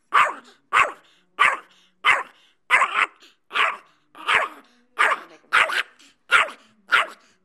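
A dog barking over and over in a steady string, about a dozen short barks, one roughly every two-thirds of a second.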